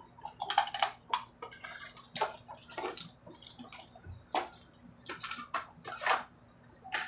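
Blue crabs being eaten by hand: irregular cracking and snapping of crab shells and picking at the meat, with mouth sounds of eating.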